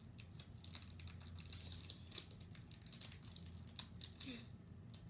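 Foil wrapper of a Pokémon card booster pack crinkling and crackling faintly and irregularly as hands work at tearing it open.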